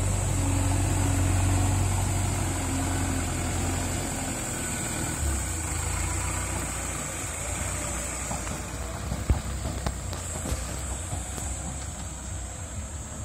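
JCB 3DX backhoe loader's diesel engine running steadily as the machine drives, loudest for the first few seconds and then fainter as it moves off, with a couple of sharp knocks about two-thirds of the way through.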